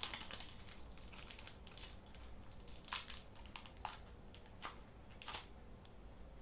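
Foil Pokémon booster pack wrapper crinkling as it is handled and opened, in faint scattered crackles with a few sharper ones in the second half.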